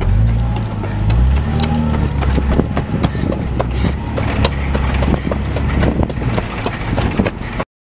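A slowly moving car's low engine rumble and tyre noise, with many crackling clicks. The sound cuts off abruptly near the end.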